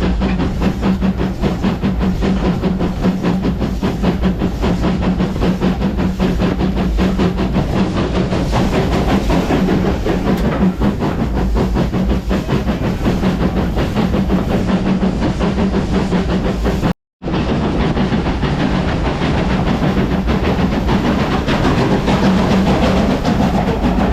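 Heritage steam train running along the track: a continuous rumble with a steady hum and rapid clatter, plus some hiss. The sound cuts out briefly about seventeen seconds in, then carries on.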